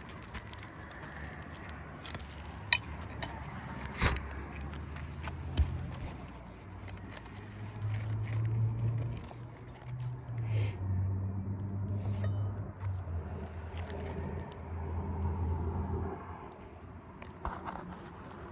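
Asphalt roofing shingle and hand tools being handled on a roof, with scraping and a few sharp clicks and clinks a few seconds in. A low engine-like hum rises and falls underneath, louder in the second half.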